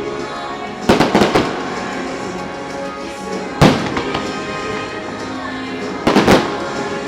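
Fireworks bursting over a loud music soundtrack. Sharp bangs come in three groups: a quick cluster about a second in, a single burst near the middle, and another cluster near the end.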